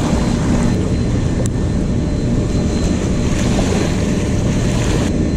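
Wind buffeting the microphone in a steady low rumble, over small waves lapping and splashing against a muddy riverbank.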